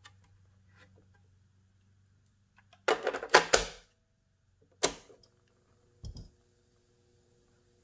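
Plastic cassette clacking into the well of a 1970 RCA stereo cassette deck, then single mechanical clicks from the deck's piano-key controls, the last with a dull thump as the play key latches down.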